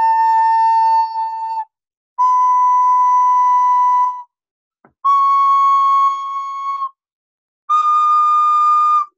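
A child playing a flute: four long held notes, each a little higher than the one before, with short breaths between them.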